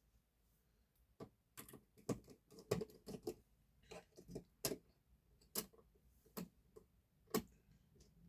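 Irregular light clicks and taps from hands handling computer parts, about fifteen sharp ticks spread unevenly over several seconds.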